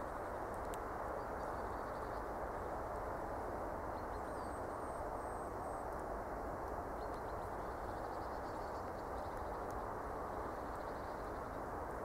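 Steady outdoor background hiss on a frozen river, with faint high chirps and short trills of small birds now and then, around the middle and near the end.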